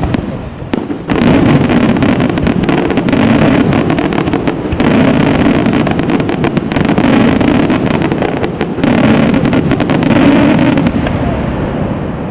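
Fireworks display: a dense, rapid barrage of bangs and crackling from bursting aerial shells, building sharply about a second in and easing off near the end.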